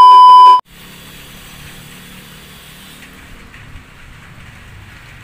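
A loud, steady 1 kHz test-tone beep, the TV colour-bar glitch transition effect, cuts off sharply under a second in. Faint steady outdoor background noise with a low hum follows.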